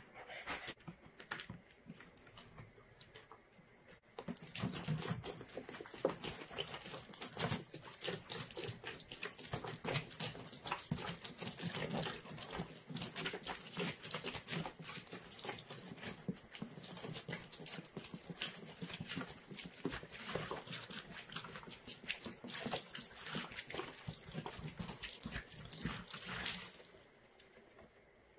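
A Pine-Sol Lemon and Pinalen cleaner mix pouring from an upturned plastic jug onto sponges in a plastic tote bin: a dense, splashing pour that starts about four seconds in and stops a little before the end.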